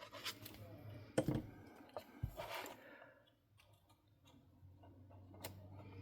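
Small handling noises of cardstock craft pieces being glued and positioned: a sharp click about a second in, a soft knock and a brief paper rustle, then a quiet stretch with another click near the end.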